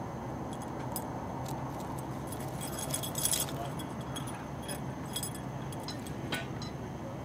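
A cat's collar tinkling in scattered little jingles as the cat moves and plays, with the busiest jingling about three seconds in, over a steady low background hiss.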